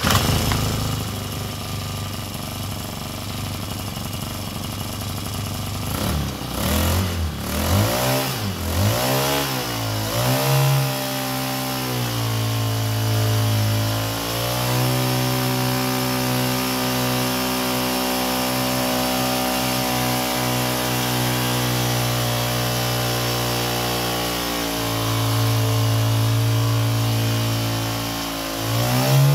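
Ozeam 1.3 hp kayak outboard's small engine starting and running, first idling, then revved up and down several times between about six and eleven seconds in, then held at a steadier, faster speed with small changes in pitch for the rest.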